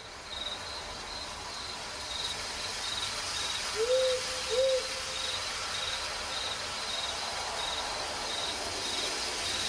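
Night ambience of crickets chirping in an even pulse, about two chirps a second, over a faint steady hiss, with an owl hooting twice about four seconds in.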